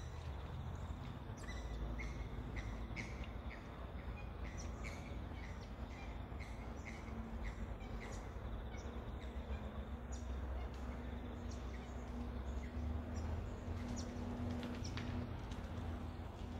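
A bird chirping over and over, about two short chirps a second, thinning out after the first half, over a steady low outdoor rumble and a faint steady hum.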